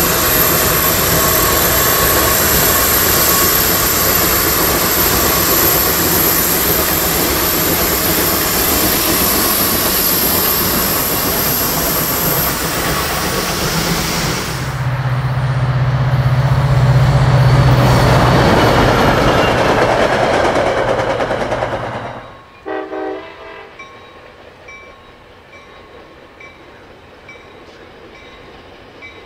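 Two geared Shay steam locomotives working hard, their exhaust beating rapidly and loudly. Partway through, a deep steady tone sounds for several seconds and then cuts off suddenly. After that comes a much quieter distant passing train with a brief horn-like tone.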